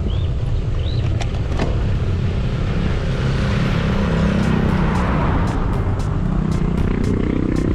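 Wind and road rumble on a moving bicycle's camera while a motor vehicle passes, its engine and tyre noise swelling about four seconds in and then falling in pitch as it goes by. Another vehicle draws closer near the end.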